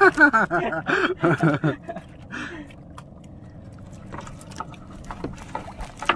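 Fishing net being hauled by hand into a small wooden outrigger boat: soft rustling with scattered small clicks and knocks as the net comes over the side.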